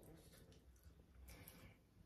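Near silence: room tone with a few faint soft clicks.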